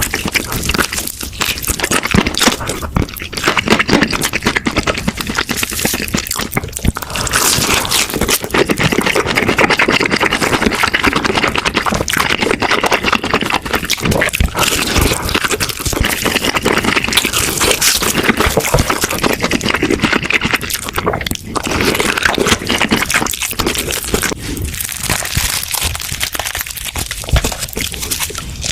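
Close-miked eating of crispy fried chicken: loud, rapid crunching and crackling of the batter as it is bitten and chewed, with many sharp cracks.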